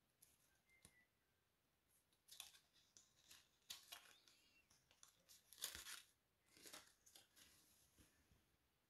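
Faint rustling and crinkling of a polyester football jersey and its paper hang tag being handled, in short scattered rustles with the loudest about two-thirds of the way through.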